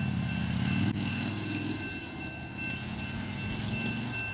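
Low diesel engine rumble with steady high-pitched tones above it, fitting railroad crossing warning bells, and a single sharp click about a second in.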